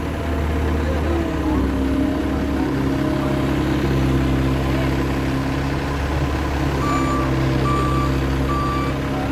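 Case skid steer loader working: its diesel engine runs steadily, rising in pitch about a second in as the throttle comes up. Near the end its reversing alarm starts, an even series of beeps.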